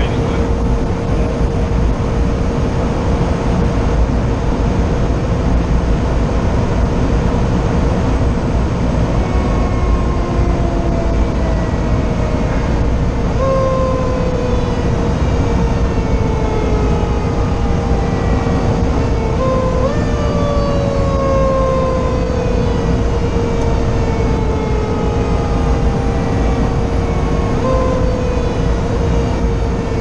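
Steady diesel engine and road noise inside a fire engine's cab on an emergency run, with a constant whine. From about a third of the way in, a mechanical Q siren winds down in a long falling tone, briefly pushed back up a few times, the last near the end.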